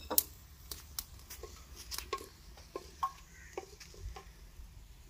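Chopped garlic frying lightly in hot oil in a clay handi: sparse, irregular crackling pops, about two or three a second.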